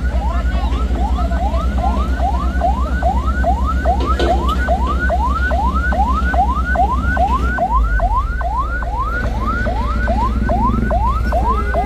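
Ambulance siren on a fast yelp, each call rising sharply and snapping back, about three times a second, over the low steady running of an engine.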